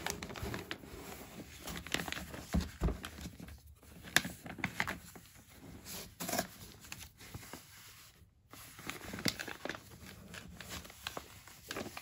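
Paper and cardboard rustling and scraping as a paper-wrapped box is handled and lifted out of a cardboard shipping box, with irregular crinkles and light knocks, and two short pauses.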